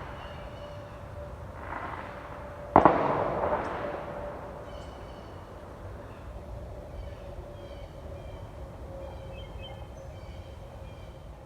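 A single sharp bang about three seconds in, with a brief echoing tail, over a faint steady outdoor background.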